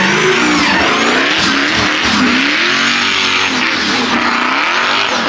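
Performance car's engine revving hard under acceleration, its pitch climbing and dropping back several times with gear changes.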